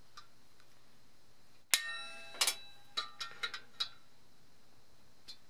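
Metallic clinks from a copper model locomotive boiler shell being handled with hand tools: one sharp clink that rings briefly a little under two seconds in, followed by a quick run of lighter ringing clinks.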